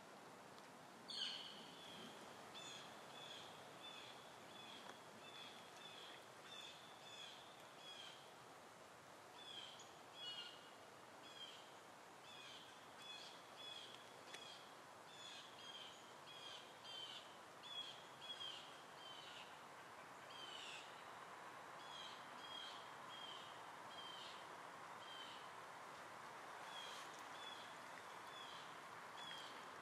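A bird calling over and over with short, high chirps, about two a second with a few brief pauses, the sharpest about a second in, over faint steady outdoor background noise.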